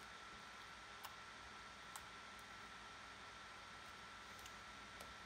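Near silence with a steady hiss and a thin steady high tone, broken by a few faint clicks of white sticky glue-and-shaving-cream slime being poked and pulled, the two clearest about one and two seconds in.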